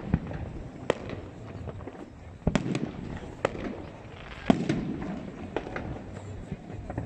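Aerial fireworks going off in irregular sharp bangs and crackles. The heaviest bursts come about two and a half seconds in and about four and a half seconds in, each with a low rumbling boom.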